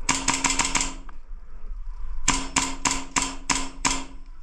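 Airsoft gun firing two quick strings of shots, about seven each, the second starting about two seconds in.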